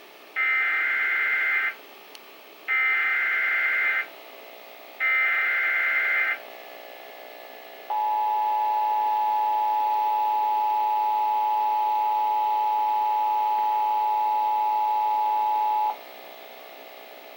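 Emergency Alert System monthly test signal: three short bursts of warbling digital SAME header data tones, each a little over a second long with short gaps between them, then after a pause the steady two-note EAS attention tone for about eight seconds, which cuts off suddenly.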